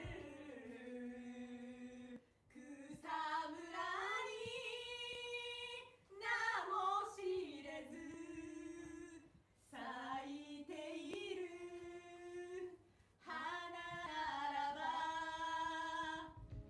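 A woman singing unaccompanied: long held notes with vibrato and sliding pitch, in about five phrases broken by short pauses.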